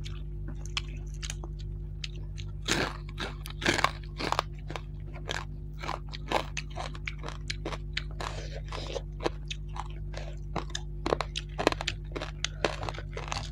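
Close-miked chewing and crunching of fried rohu fish and rice: irregular wet mouth clicks and crisp crunches, with a steady low hum underneath.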